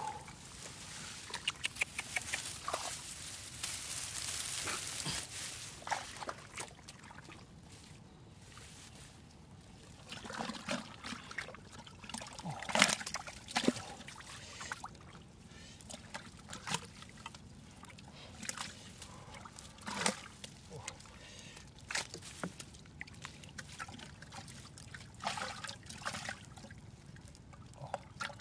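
Water trickling and pouring for the first few seconds, then scattered, irregular splashes and knocks of water being disturbed, the loudest about thirteen seconds in.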